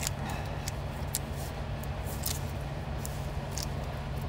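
A vehicle engine idling as a steady low hum, with scattered short crinkles and clicks from hands working on the exhaust-pipe repair.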